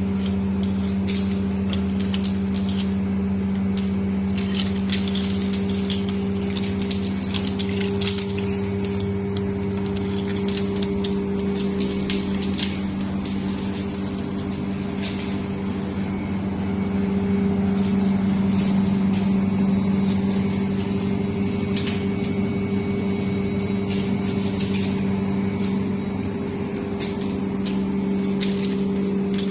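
Flake ice machine running: a steady machine hum with a strong low tone, and many irregular crackling clicks over it.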